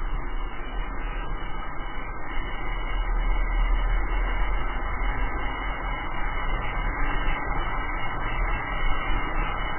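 Wind buffeting the camera microphone, over the rolling noise of drift-trike wheels on asphalt, during a fast downhill run: a steady rushing noise with a deep rumble.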